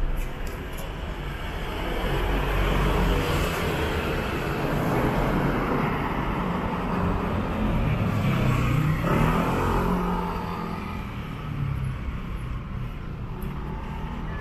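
A motor vehicle passing close by in street traffic, its engine and tyre noise swelling from about two seconds in and fading after about ten seconds, over steady city background noise.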